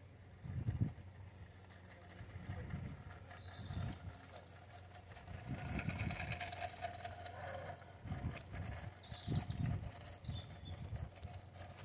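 A 5-inch gauge miniature locomotive and van rolling along garden railway track: a low, uneven rumble from the wheels, with a faint steady whine that is strongest in the middle as it passes closest. Birds chirp briefly several times.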